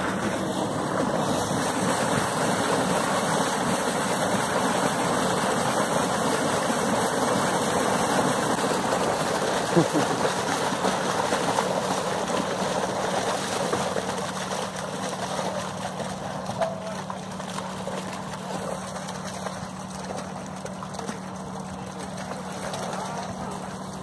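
Water and yearling trout gushing out of a fish-stocking truck's discharge tube and splashing into the lake. The rush is steady, then eases off over the second half as the flow dies to a trickle. A low steady hum runs underneath, and there is a single thump about ten seconds in.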